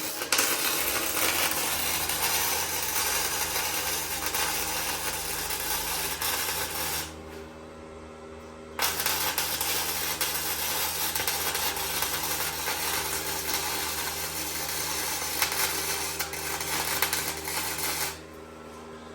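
Welding arc crackling and sizzling while a long bead is run. It stops about seven seconds in, leaving only a steady machine hum for about two seconds, then a second long bead runs until it stops near the end.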